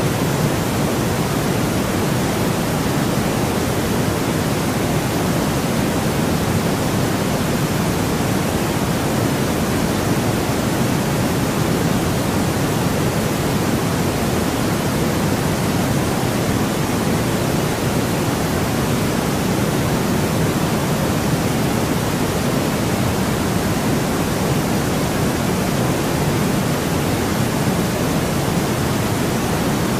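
Steady, unchanging synthetic noise, a smooth hiss heavier in the low and middle range than in the highs, played as a sleep sound.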